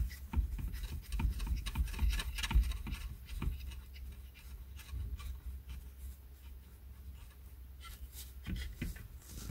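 Hands working behind a car seat back at a headrest mount bar, fitting its nuts: irregular rubbing and scratching against the seat fabric with small clicks, busier in the first few seconds.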